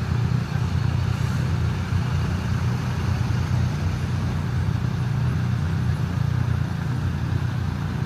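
Steady low engine rumble with no distinct beats or changes.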